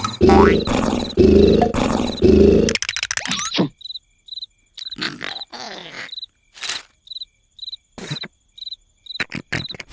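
Cartoon snoring: a run of loud, rhythmic snores that cuts off about three seconds in. What remains is a quiet night ambience of evenly spaced cricket chirps, with a few short incidental sounds.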